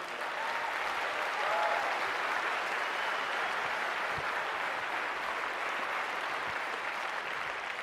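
Large audience applauding steadily, with a faint voice calling out briefly in the first two seconds.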